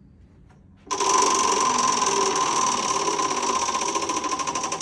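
Spinning prize wheel: its flapper clicking rapidly against the pegs. The clicks start suddenly about a second in and slow gradually as the wheel loses speed.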